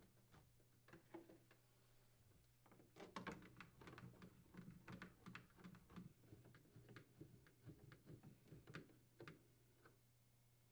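Faint, irregular small clicks and ticks from a screwdriver threading screws into a freezer's evaporator cover, starting about three seconds in, over a low steady hum.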